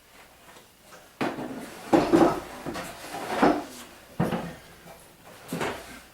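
Wooden table parts being handled and set against each other: about five knocks and clunks, the loudest around two seconds in.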